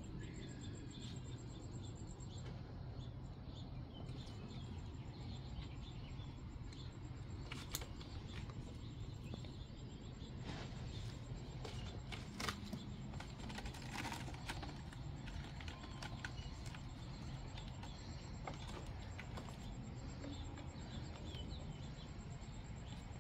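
Outdoor background noise with a high, thin insect trill at the start that stops after about two seconds and returns near the end, and a few light clicks in between.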